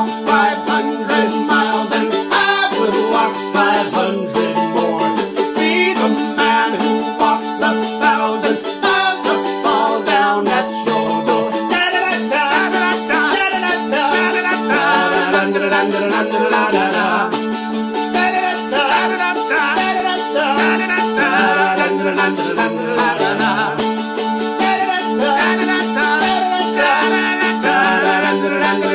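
A-style mandolin with f-holes strummed in a steady rhythm, with a man singing along wordlessly over it.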